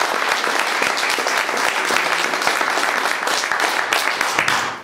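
Audience applauding: many hands clapping together, tailing off near the end.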